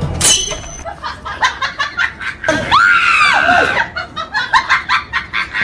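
Laughter in quick, repeated bursts, with a short falling whistle near the start and a high squeal that rises and falls about halfway through.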